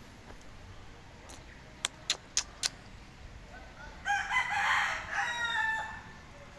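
A rooster crowing once, a call of about two seconds starting about four seconds in. Earlier, four sharp clicks come in quick succession.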